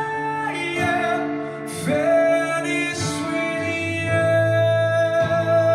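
A song played back through KEF Q Concerto Meta bookshelf speakers in an echoey room: a voice sings over guitar, changing notes a few times, then holds one long note for the second half.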